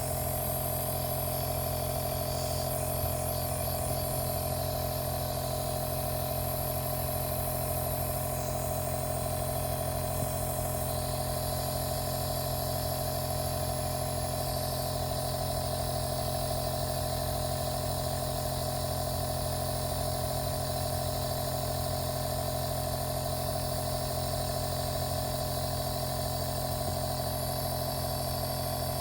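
Compressor nebulizer's small air compressor running with a steady, even hum and a faint hiss.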